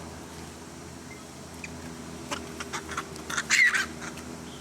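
A short, harsh animal squawk about three and a half seconds in, after a few sharp clicks, over a steady low hum.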